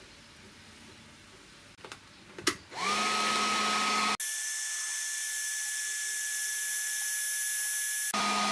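Makita DHG181 18V cordless heat gun switched on after a couple of sharp clicks, its fan spinning up to a steady whine. About halfway in the whine jumps abruptly to a higher, thinner pitch, then drops back to the first pitch near the end.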